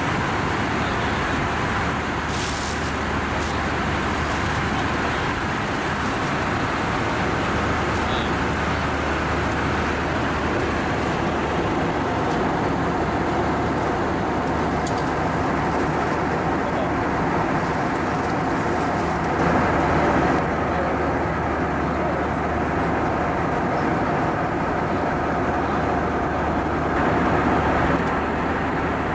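Steady cabin noise of an Airbus A320-232 in cruise: airflow and the IAE V2500 turbofans heard from a window seat over the wing, an even, unchanging rush.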